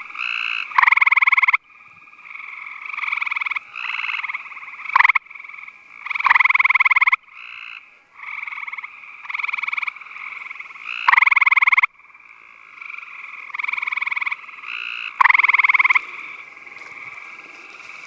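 Gray tree frogs calling: short trills of about a second each. One near frog's trill is loud and comes back about every four to five seconds, and quieter trills from other frogs overlap in between.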